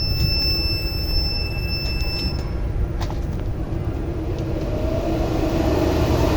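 Eltek rectifier's cooling fans running with a steady rumble. A thin high whine cuts off a little over two seconds in, and near the end the fan hum rises as the fans speed up again while the fan-assembly alarm is being cleared.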